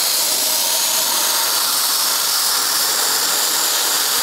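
Sandblasting gun hissing steadily as it blasts garnet grit at a rusty cast-iron intake and exhaust manifold.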